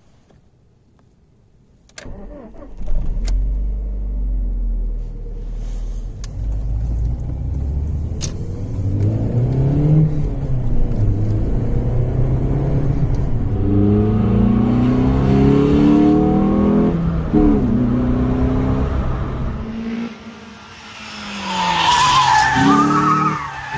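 Alfa Romeo 145's 1.4 Twin Spark four-cylinder engine, fitted with a K&N cone air filter, coming to life about two seconds in and revving. It then accelerates hard through the gears, heard from inside the car, its note climbing and dropping at each shift. Near the end the car drives by with a loud pass, its note rising and then falling away.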